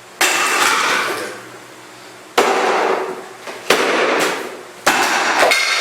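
Dirt Devil upright vacuum cleaner being smashed: four heavy blows on its plastic housing, each followed by about a second of clattering and rattling of broken pieces.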